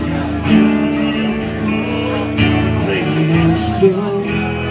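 Live acoustic guitar music, with chords strummed at a steady pace.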